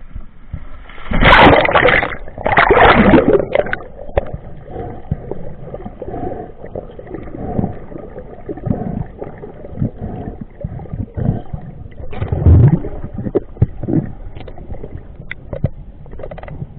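Water gurgling and sloshing around a spearfisher, with loud churning bursts about a second in, again at about three seconds, and near twelve seconds, plus scattered knocks.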